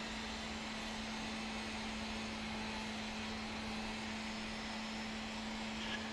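Steady background drone with a constant low hum running underneath.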